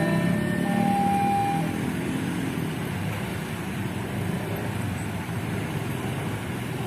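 Road traffic noise from passing motor vehicles, steady throughout, with a short steady horn note in the first second and a half.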